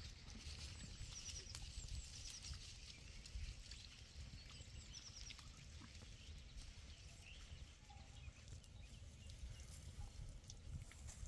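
Faint open-air mountain ambience: a low wind rumble on the microphone, with a few short high chirps in small groups about one to five seconds in, and scattered faint ticks.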